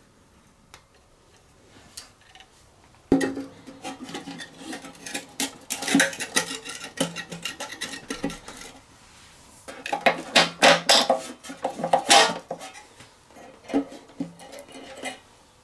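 Small metal parts clinking and clanking in irregular bursts as a fuel tank and throttle linkages are handled and fitted to a small mower engine. The clanks start about three seconds in and are loudest around the middle and again near the end.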